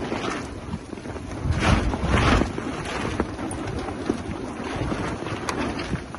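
Strong wind gusting across the microphone in stormy weather, with the heaviest gusts about one and a half and two and a half seconds in, and faint scattered ticks.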